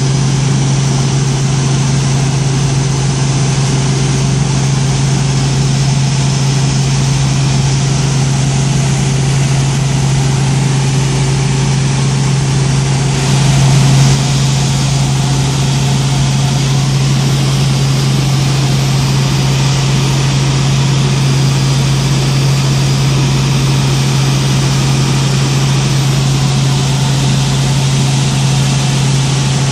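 Robinson R44 helicopter in flight, heard from inside the cabin: a steady drone of the piston engine and rotor, with a strong low hum under it. The sound swells slightly for a moment about halfway through.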